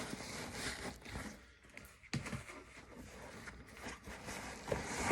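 Rustling and scraping of a backpack and its contents being handled while packing, with scattered small clicks and a sharp knock near the end.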